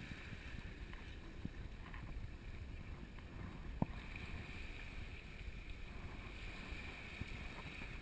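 Wind noise on the microphone: a low steady rumble with faint hiss, and a small click about four seconds in.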